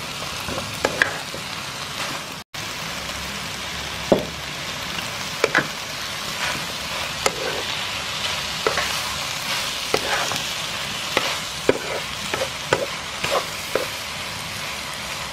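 Fish cakes and vegetables sizzling in a hot nonstick pan while a wooden spatula stirs and scrapes them, with frequent sharp knocks of the spatula against the pan. The sound cuts out for an instant about two and a half seconds in.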